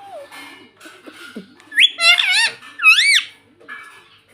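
Indian ringneck parrot calling: soft, scratchy chatter, then about two seconds in a rising note and two loud, wavering squawks in quick succession.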